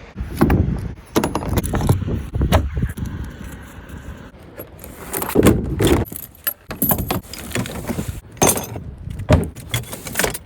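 Irregular jangling and clinking, with heavy bumps and knocks scattered throughout.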